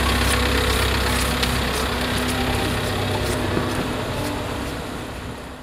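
A steady low mechanical hum under a haze of background noise, with a few faint clicks, fading out near the end.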